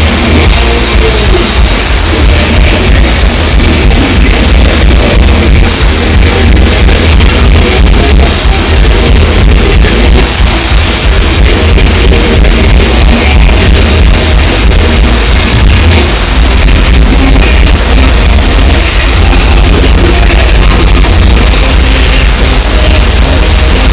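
Live thrash metal band playing loud: distorted electric guitars, bass and fast drums, heavily clipped on the recording.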